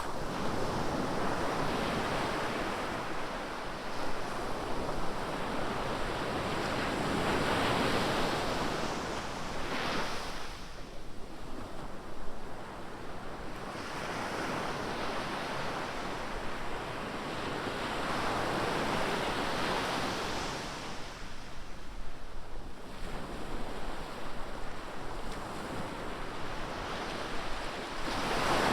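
Ocean surf breaking on a beach: a steady wash of noise that swells and fades in slow surges several seconds apart.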